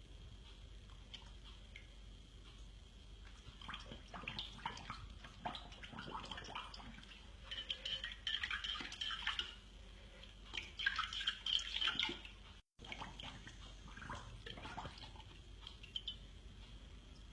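A dog licking and mouthing at a drawn bone: wet tongue-and-mouth clicks in irregular bursts, loudest in the middle, with a short cut to silence about two-thirds of the way through.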